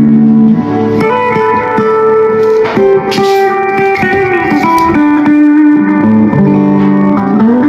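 Electric guitar playing a bluesy line of held notes, with a few notes sliding up or down in pitch.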